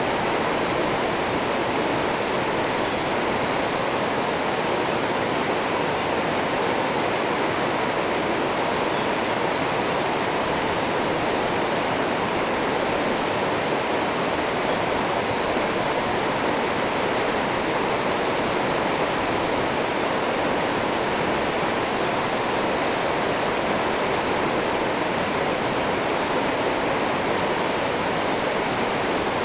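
Steady rush of a river running over rocky rapids. Faint short high chirps come and go over it.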